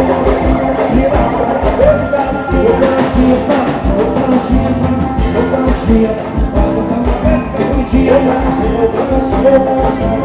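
Brazilian swingueira band music: drums keep a steady beat under pitched instrument lines.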